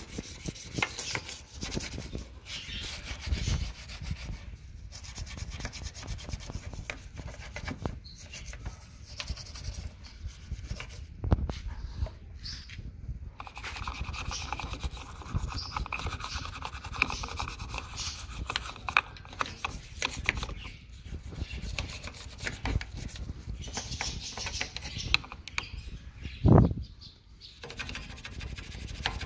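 A toothbrush scrubbing the painted metal around a car's fuel filler opening and the fuel cap: continuous dry rasping strokes with many small clicks. A single dull thump comes near the end.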